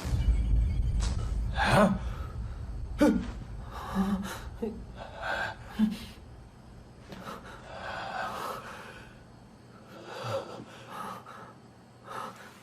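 A person gasping and breathing hard in a series of short, breathy breaths, with a low rumble underneath in the first couple of seconds.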